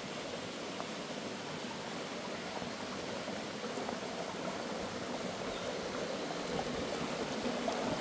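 Stream water running and trickling among rock pools: a steady rush that grows a little louder toward the end.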